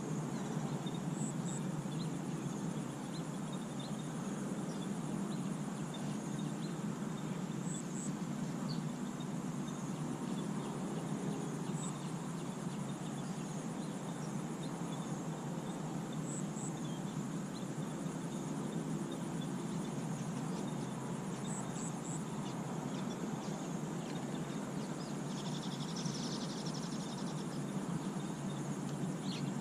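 Outdoor ambience: a steady high insect drone over a steady low rush, with short paired chirps every few seconds and a brief call near the end.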